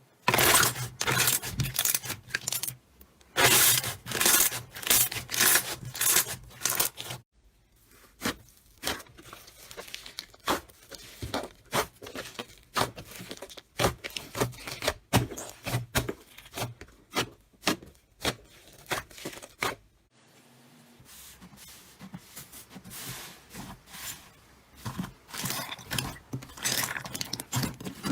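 Slime being squeezed and stretched by hand: dense, sharp crackling and popping clicks. The sound changes abruptly about seven and twenty seconds in as one clip gives way to the next.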